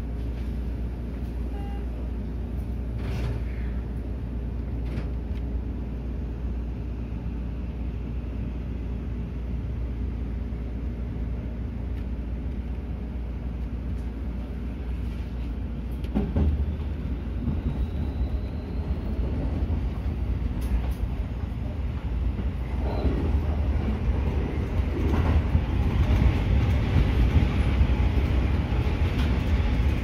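Seibu 30000 series electric train running, heard from inside the driver's cab: a steady low rumble that gets louder about halfway through. From there the wheels click over points, and a faint rising motor whine comes in as the train picks up speed.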